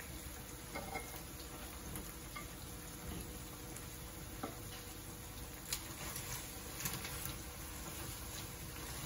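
Seafood paella sizzling faintly and steadily in its pan on the gas burner, with a few sharp clicks of clam shells as langoustines are pressed in among them by hand.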